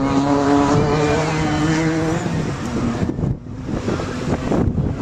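An off-road vehicle's engine holds a steady high pitch for about two seconds, then gives way to a rough, crackling rush of noise.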